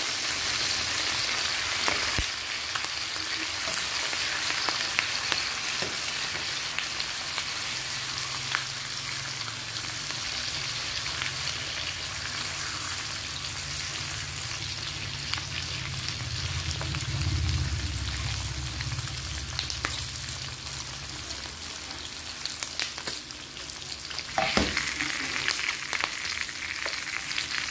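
Bacon-cut pork belly slices sizzling and crackling steadily in hot rendered fat in a nonstick frying pan, with a couple of sharp clicks, one about two seconds in and one near the end.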